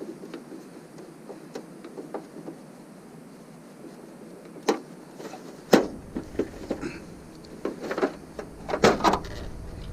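Scattered knocks and clicks of a CRT television's plastic back housing being handled and pried open, sparse at first and busier in the second half, with the loudest knock a little past halfway. A low rumble starts at about the same moment.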